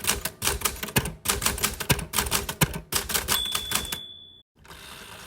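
Smith Corona Galaxie XII manual typewriter typing fast, a quick run of sharp key strikes, with a single clear ring, like the end-of-line bell, near the end of the run. After a short pause comes a softer rushing sound.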